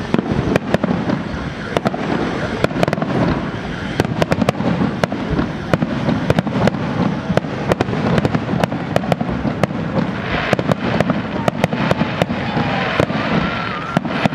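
Festive fireworks display: shells bursting in rapid, irregular bangs, several a second, over a continuous din of crackling and distant explosions. A faint whistling glide comes through about three-quarters of the way in.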